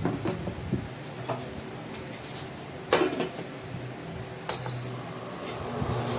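Glass lid set down onto a stainless steel pot with one sharp clank about three seconds in, after a few small clicks, and a lighter click with a brief high ring near the end. A steady low hum runs underneath.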